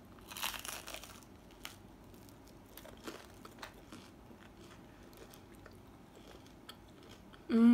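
A bite into a crusty garlic French bread loaf, a crackly crunch of the crust about half a second in, then quiet chewing with small crackles. Near the end a hummed "mmm" begins.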